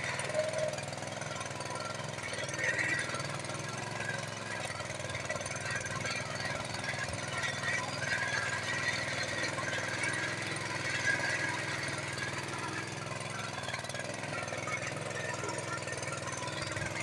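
Small single-cylinder petrol engine of a walk-behind mini tiller running steadily under load as its spoked tines dig through soil.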